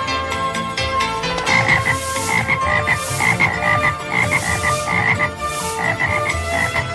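Frogs croaking in quick repeated pulses, several a second, starting about a second and a half in.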